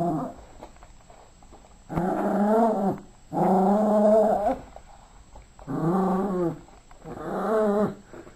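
Yorkshire terrier growling in play, four growls of about a second each, starting about two seconds in.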